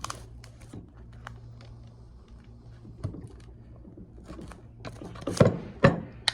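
Hand work on a mobility-scooter armrest: scattered light clicks and rustles over a low steady hum, then two loud knocks close together near the end, like the armrest or a tool being set down hard on the bench.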